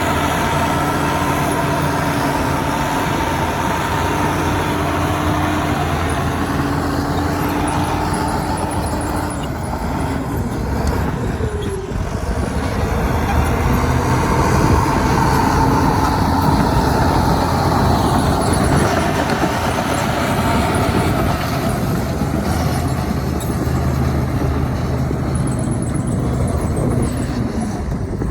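Heavy diesel engine of earthmoving machinery running steadily under load, its pitch rising and falling as the work goes on.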